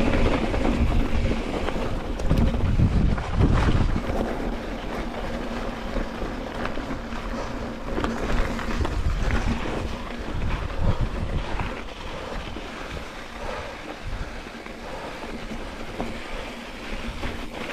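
Wind buffeting the microphone, a rough rumbling rush that is strongest in the first four seconds and then eases, with a few faint clicks.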